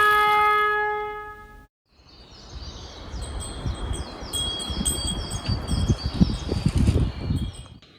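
A chime's ringing tones fade out over the first second and a half. After a moment of silence, outdoor ambience rises with low rumbling and repeated short high chirping calls.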